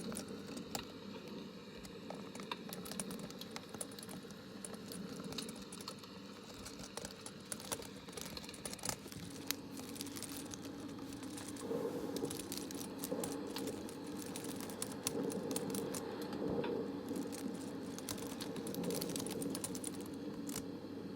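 Light, rapid tapping and clicking on small hard objects, many irregular clicks, over a steady low background noise.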